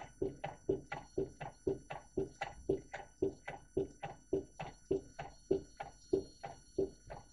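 Homemade candle-heated Stirling engine running, its mechanism knocking in a steady rhythm of about two strong knocks a second with lighter clicks between them.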